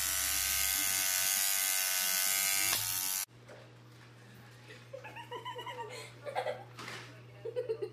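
A small electric motor buzzing steadily, cut off abruptly a little over three seconds in; then quieter, with short voice-like sounds that bend in pitch.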